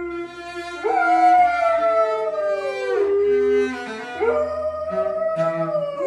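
A husky-type dog howling along to a cello being bowed: two long howls, each rising at the start and then sliding slowly down in pitch, over the cello's lower held notes.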